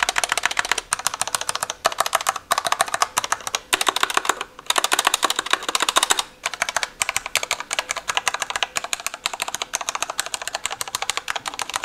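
Fast typing on a Corsair K60 RGB Pro mechanical keyboard with linear Cherry Viola switches: a dense run of key clacks broken by a few brief pauses. A light spring sound comes through, with the plastic case beneath the switches acting as a resonance box.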